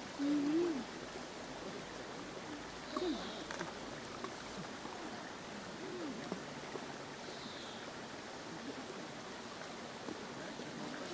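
Outdoor ambience: a steady rushing noise, with a few faint, brief calls or voice-like sounds, the loudest one right at the start and others around three and six seconds in.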